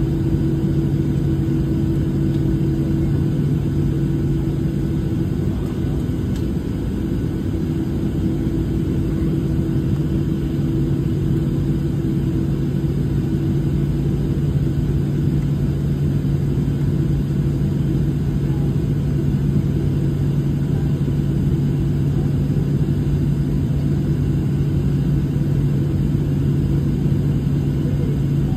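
Steady cabin rumble inside a Boeing 737-700 heard from a window seat over the wing, its CFM56-7B engines running at low power as the airliner taxis slowly. A steady low hum runs throughout, and a higher hum fades a few seconds in.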